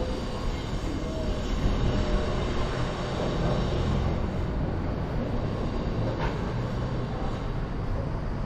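Steady city street noise with a low rumble of passing vehicles.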